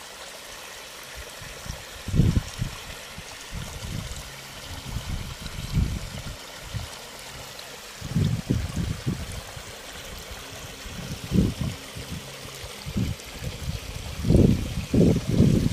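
Irrigation water running steadily out of a gated irrigation pipe and along muddy furrows. Irregular low buffeting on the microphone comes and goes over it, loudest near the end.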